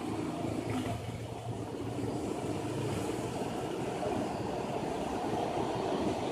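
Steady rumble of an SMRT electric train approaching along the elevated viaduct, mixed with the road traffic running below. It grows gradually louder toward the end.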